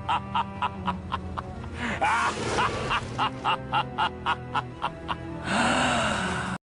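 Evil-laugh sound effect: a voice laughing in quick, evenly spaced 'ha-ha' pulses over a low music bed, finishing with one longer drawn-out laugh that cuts off suddenly near the end.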